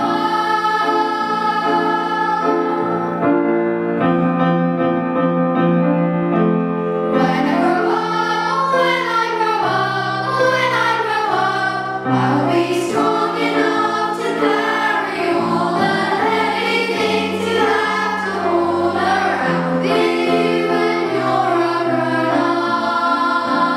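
Background music: a choir singing over held chords.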